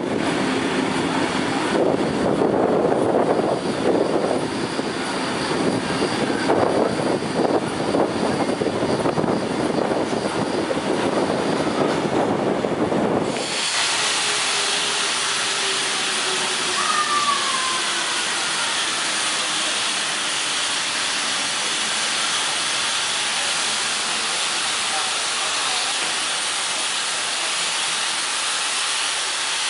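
Railway train noise: irregular rumbling and clattering for about the first thirteen seconds, then a sudden change to a steady hiss with a faint falling tone and a brief squeal partway through.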